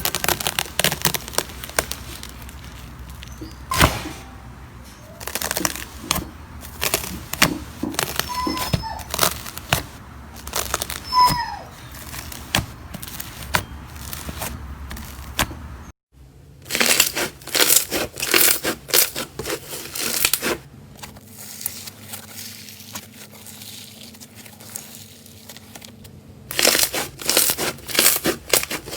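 Slime being squeezed and pressed by hand, giving dense runs of crackling clicks and small pops. The sound drops out for a moment about halfway through, then the crackling comes back thicker.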